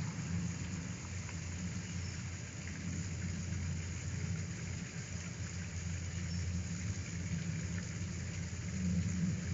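Steady low rumble with a light hiss, swelling a little near the end.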